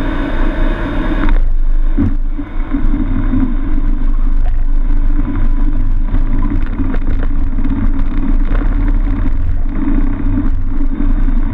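Cessna 182 landing, heard from the cockpit: the piston engine and propeller note drops abruptly just over a second in as power comes off. A thump about two seconds in, then a steady low rumble of the landing roll with the engine at idle.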